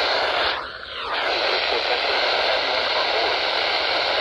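Steady hiss of static from a weather radio receiver picking up a NOAA Weather Radio broadcast, with no voice on the air, dipping briefly about a second in.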